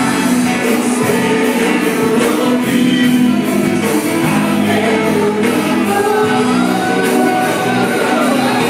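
Live gospel worship song: a praise team singing together over a band with a steady beat.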